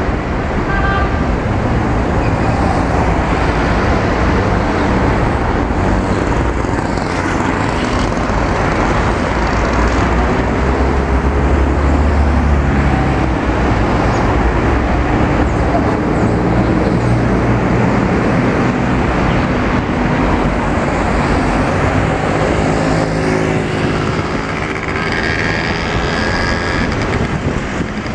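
Busy city street traffic: cars, vans and motorbikes running and passing in a steady mix of engine and tyre noise. One vehicle passes close around the middle, and motorbike engines pull away near the end.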